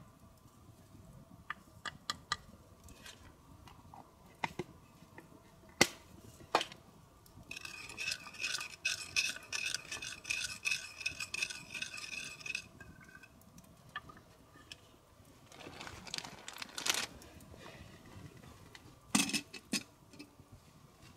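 A spoon scraping and clinking in a bowl, with a run of rapid scraping for about five seconds in the middle and scattered sharp clicks and knocks around it.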